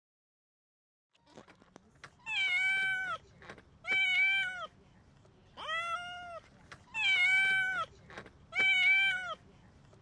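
A cat meowing over and over: five drawn-out meows, each bending up and then down in pitch, about a second and a half apart, starting about two seconds in.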